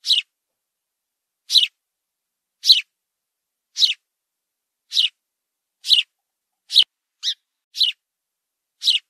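House sparrow chirping: about ten short, high single cheeps spaced about a second apart, a little quicker near the end, with silence between them.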